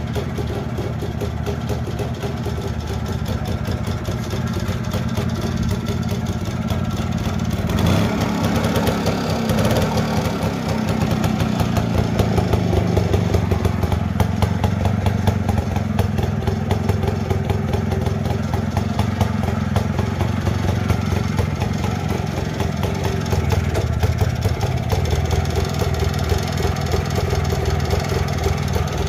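1954 BSA D1 Bantam's small single-cylinder two-stroke engine running at idle with rapid, even firing. It picks up briefly about eight seconds in and runs a little louder after that.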